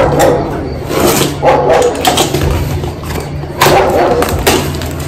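Cardboard shipping box being cut and torn open with a box cutter, the cardboard tearing in several short bursts, while a dog barks now and then.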